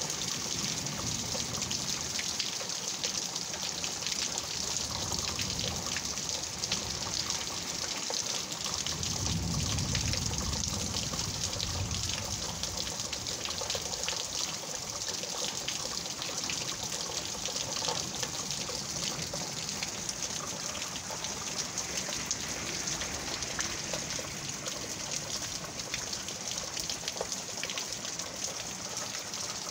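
Heavy rain falling steadily: a dense hiss full of small drop hits, with a low rumble for a few seconds about nine seconds in.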